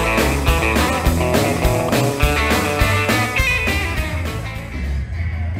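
Background music: a rockabilly guitar instrumental with a steady beat, its top end thinning out near the end.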